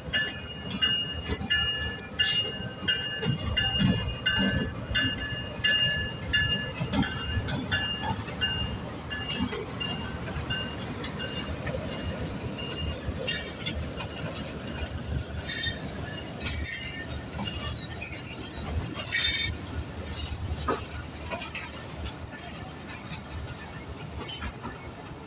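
Diesel-hauled passenger train rolling slowly into a station platform, with a low rumble from the wheels and running gear throughout. Over the first half a high ringing tone repeats about twice a second, the station's information bell. In the second half the coaches' wheels give short squeals and clanks as they pass.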